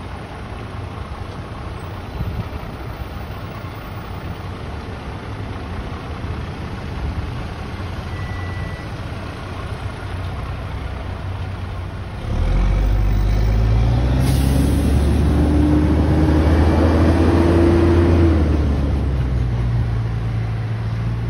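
Heavy fire truck diesel engine: a low rumble at first, then about twelve seconds in a much louder deep engine note that climbs in pitch as the truck accelerates and eases off near the end, with a short air hiss partway through.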